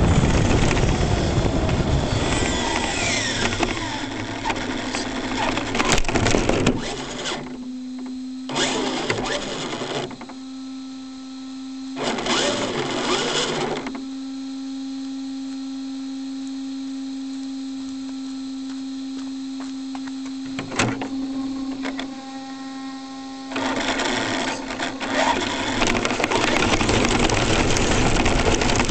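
ECX Torment brushless RC truck driving, picked up by a camera on its roof: motor whine rising and falling over rough tyre and road noise. In the middle it mostly stands still with a steady hum and two short bursts of driving, then it runs hard again near the end.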